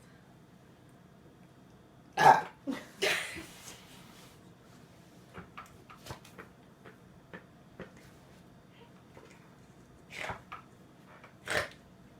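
A person burping after drinking carbonated soda: a short, loud burp about two seconds in, two smaller ones right after it, and two more near the end, with faint clicks in between.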